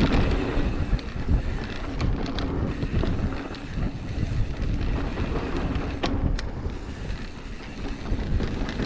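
Pivot Switchblade mountain bike rolling fast down a bike-park trail: an uneven rumble of tyres and the bike shaking over the ground, with wind buffeting the microphone and a few sharp knocks and rattles from the bike, around two and six seconds in.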